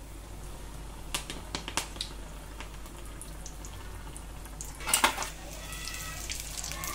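Bajji fritters frying in a kadai of hot oil with a steady low sizzle, while metal tongs clink and scrape against the pan several times, the loudest clatter about five seconds in.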